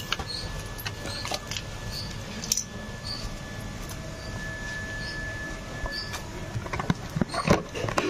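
Keys on a belt carabiner jingling lightly among scattered clicks and handling noise, with a faint steady high tone in the background; a cluster of louder knocks near the end.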